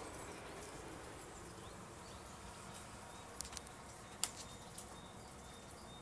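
Faint outdoor background with a few sharp clicks a little past the middle, the loudest near the end of them, and some faint short high peeps in the second half.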